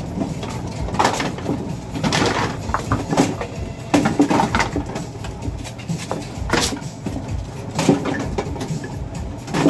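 Bowling pinsetter cycling: the pin deck lowering and setting pins with irregular clanks and knocks over the machine's steady rumble.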